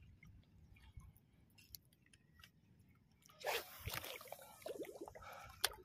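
Water sloshing and splashing against the side of a small boat. It comes in a burst of about two seconds starting about three and a half seconds in, and ends in a sharp knock.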